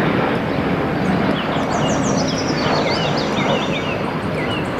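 Steady jet engine noise of a twin-engine airliner on landing approach, gear down. Birds chirp many times over it, mostly in the middle.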